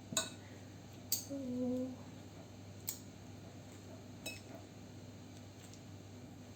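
Kitchen utensils clinking against dishes: a handful of separate sharp clinks, a second or two apart, over a low steady room hum.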